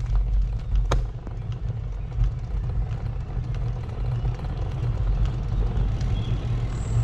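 Low, fluctuating rumble of wind and road noise on the microphone of a camera carried on a moving bicycle, with a single sharp click about a second in.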